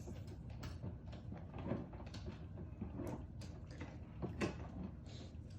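Scattered light knocks and clicks of plastic parts being handled and fitted together during assembly of a kids' ride-on toy car.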